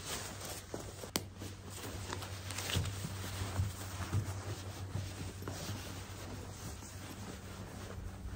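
Soft rustling and rubbing of a bedroll's synthetic quilt and stretchy outer cover as they are smoothed and pulled over by hand, with a light knock about a second in. A low steady hum runs underneath.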